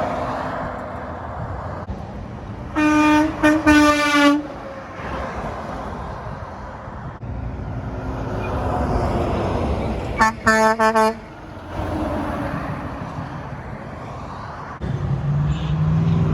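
Truck horns honking over steady road traffic. A few loud blasts come about three seconds in, and a run of quick short toots about ten seconds in. Near the end a low steady tone begins.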